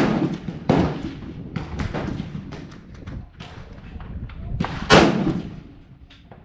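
Rifle shots on a shooting range: two loud, sharp reports about five seconds apart, the first at the very start and the second about five seconds in, with smaller reports between them. Wind rumbles on the microphone underneath.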